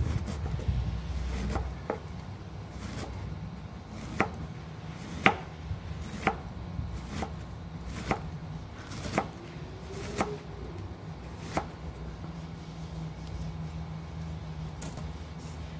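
Kitchen knife slicing cabbage into thin shreds, the blade knocking on a plastic cutting board about once a second.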